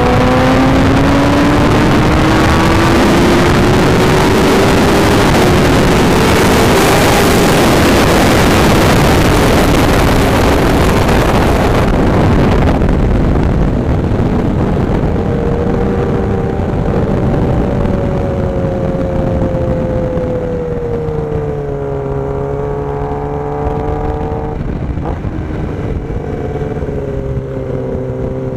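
Kawasaki ZX-10R's inline-four engine revving hard under acceleration, its pitch climbing, beneath a heavy rush of wind on the onboard microphone. About halfway through the rush drops away and the engine runs lower and steadier, its pitch dipping and then climbing again.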